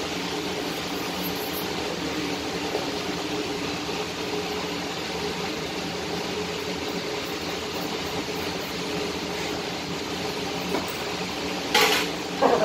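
Steady hiss of a gas-welding torch flame. Near the end come two sharp metallic clanks, the second about half a second after the first.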